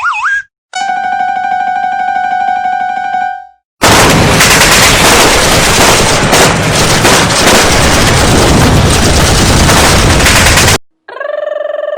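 War sound effect: continuous machine-gun fire and explosions for about seven seconds, the loudest part. Before it a single held tone, and about a second after it stops a wavering, warbling tone begins.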